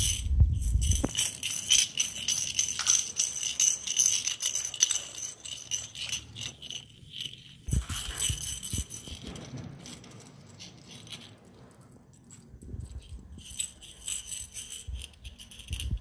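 Small bells inside hollow plastic ball toys jingling and rattling in bursts as Alexandrine parakeets carry and shake them in their beaks. The jingling is quieter in the middle and picks up again near the end.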